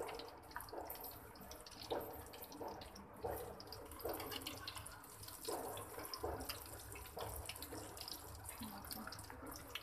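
Breaded chicken stick kebabs sizzling and crackling in shallow oil in a steel frying pan over a medium flame. A few light clicks come from metal tongs turning them.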